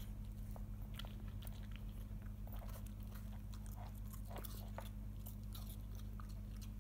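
A nine-week-old golden retriever puppy chewing and crunching pieces of raw apple, with irregular wet crunches as it bites down. A steady low hum runs underneath.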